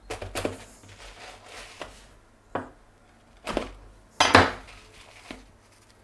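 Chef's knife cutting through a baked pizza and striking a wooden cutting board, in several separate strokes, the loudest a little after four seconds in.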